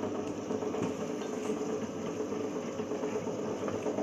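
Stainless-steel chicken meat shredding machine running with a steady motor hum.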